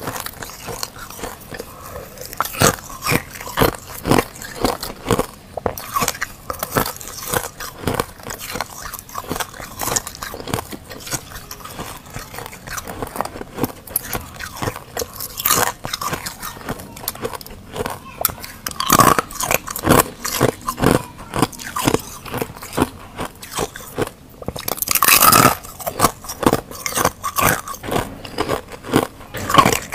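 Thin sheets of frozen ice being bitten, crunched and chewed, with crackling as shards are broken off and picked out of a silicone mould. A dense run of sharp cracks, loudest about 19 and 25 seconds in.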